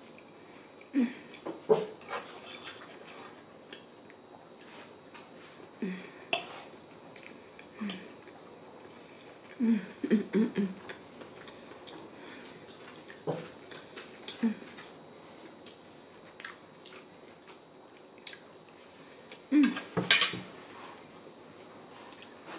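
Close-miked eating sounds: a metal fork clicking against a plate, with chewing and wet mouth noises on a meal of corned beef, cabbage and potatoes. They come in short scattered bursts, the loudest clatter of utensils and dishes near the end.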